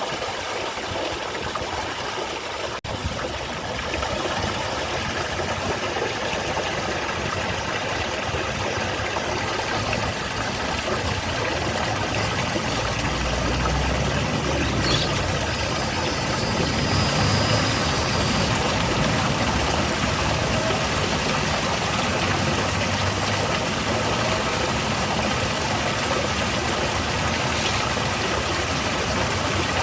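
Steady rush and splash of water from a small garden waterfall, growing a little louder about four seconds in, with a low engine-like rumble swelling under it in the middle.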